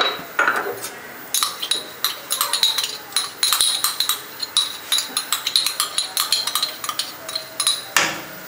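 Rapid, repeated clinking of a utensil against a dish, with a ringing note. It ends with a louder knock near the end.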